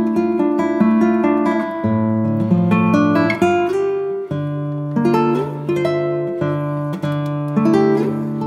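Background music on acoustic guitar, notes plucked one after another in a steady flow.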